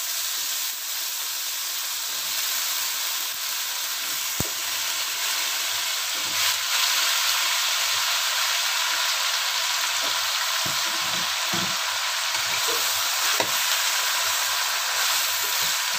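Cubed eggplant and tempe sizzling steadily in hot oil in a wok while a wooden spatula stirs them, knocking against the pan a few times.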